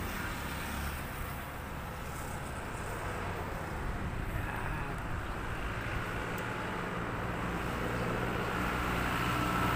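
An engine running, its hum growing louder over the last few seconds as it nears, over a low outdoor rumble.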